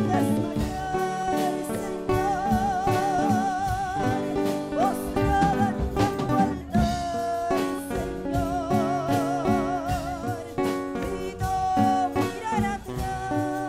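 A woman singing a slow worship song into a microphone, holding long notes with vibrato, over a steady instrumental accompaniment.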